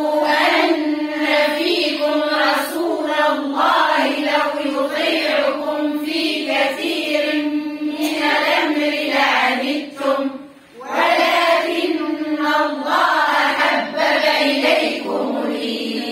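A group of women reciting the Quran in unison, a slow, melodic chanted recitation with many voices together. It breaks briefly for a breath about ten seconds in, then goes on.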